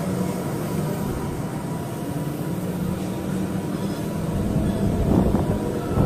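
Steady low mechanical hum with a faint constant tone underneath, swelling slightly about five seconds in.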